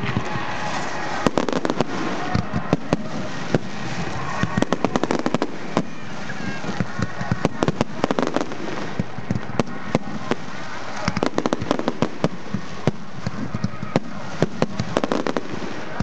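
Fireworks display: aerial shells bursting in many sharp, irregular bangs and crackles, some single and some in rapid clusters, over a steady background rumble and hiss.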